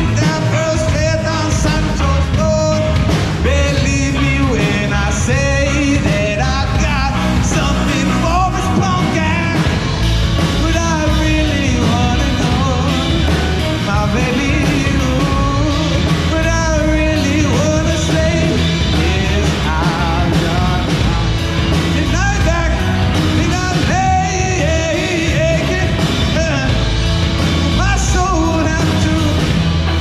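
Live rock band playing loud: a male singer's vocal over electric guitar, bass guitar and drums, picked up harshly by a GoPro's built-in microphone.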